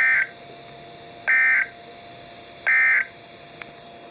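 NOAA Weather Radio SAME end-of-message code: three short bursts of warbling two-tone digital data, evenly spaced about a second and a half apart, marking the end of the alert message. A faint steady tone and radio hiss lie between the bursts.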